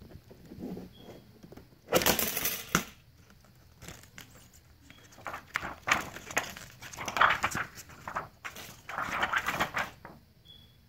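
Thin plastic diffuser films from a tablet screen's LCD backlight being lifted and handled, crinkling and rustling in bursts with small clicks and taps. The first burst, about two seconds in, is the loudest.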